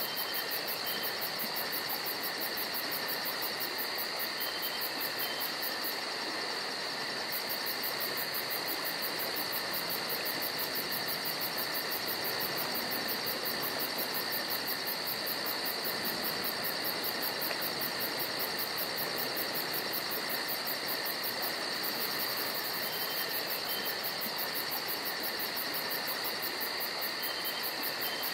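Steady ambient background: an even hiss with two high, unchanging tones running through it.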